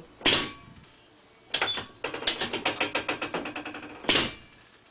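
Chiropractic adjusting equipment at work: a sharp clack just after "Dropping," then two runs of rapid mechanical clicking, about a dozen clicks a second and fading away, and another sharp clack near the end.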